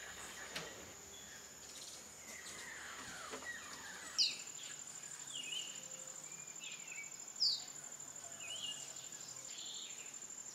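Tropical rainforest ambience: a steady high-pitched insect trill, with bird calls over it, including a sharp downward-sweeping call about four seconds in and again about seven and a half seconds in.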